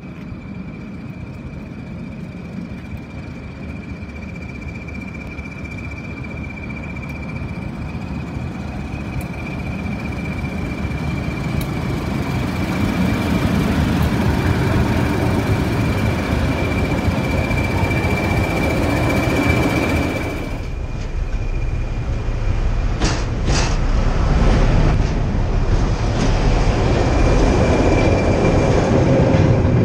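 Two diesel locomotives hauling a passenger train approach and run past, their engines growing steadily louder, with a steady high whine over the engine sound. After a cut about two-thirds in, a train of hopper wagons rolls past close by, its wheels rumbling on the rails with a few sharp metallic clanks.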